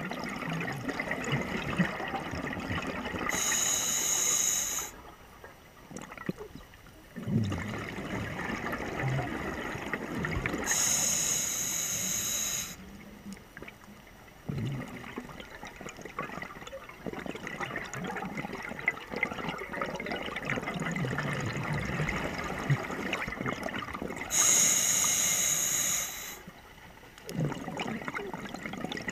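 Scuba diver breathing through a regulator underwater: three long hissing inhalations, a few seconds in, about a third of the way in and near the end, each followed by the bubbling, gurgling rush of exhaled air.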